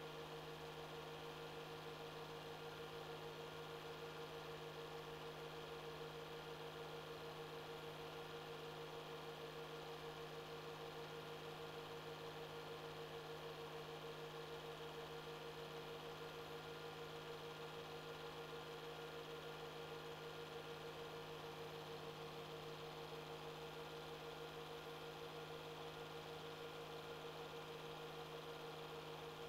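A faint, steady hum with even hiss underneath, unchanging throughout; the silent 8mm film has no soundtrack, so only this background noise is heard.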